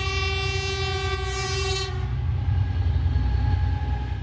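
ER2K electric multiple unit sounding its horn, a multi-tone blast that fades about two seconds in, over the steady low rumble of the moving train.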